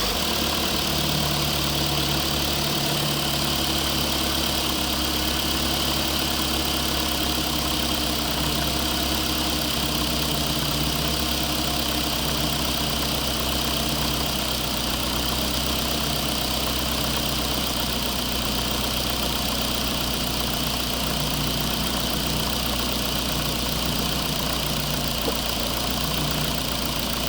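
An RC construction vehicle's engine sound, idling steadily with a low hum.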